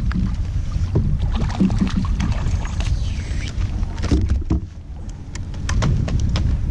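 Steady low wind rumble on the microphone. In the second half come scattered sharp clicks and knocks as a speckled trout is brought into the kayak and handled.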